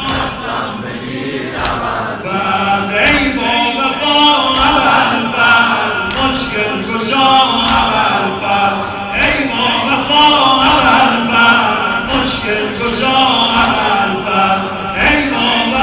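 A Shia mourning lament (noha): a male eulogist sings through a microphone and loudspeakers, and a crowd of men chants back in unison, with the thuds of chest-beating (sineh-zani).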